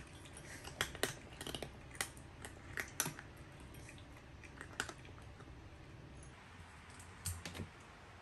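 Cats crunching dry kibble at their bowls: irregular sharp crunches and clicks, most of them in the first half.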